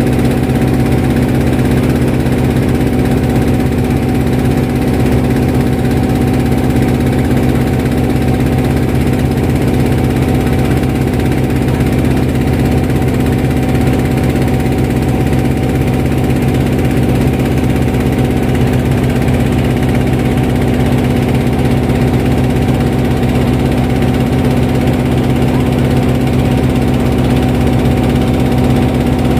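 Boat engine running steadily while the boat is under way, an unchanging hum with no change in speed.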